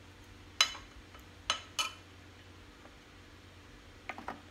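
A metal spoon clinking against a ceramic bowl: three sharp clinks in the first two seconds, then a few fainter knocks near the end.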